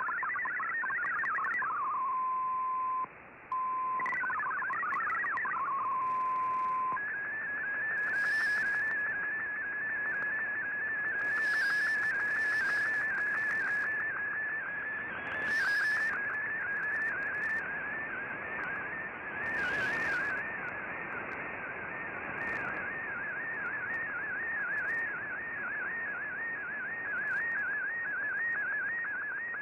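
Shortwave digital-mode broadcast received on an Icom IC-R8600 in AM: warbling MFSK data tones, a steady tone with a short dropout, more data tones, then from about seven seconds in a continuous wavering tone as an MFSK picture is sent, over steady receiver hiss. A few short bursts of hiss break in along the way.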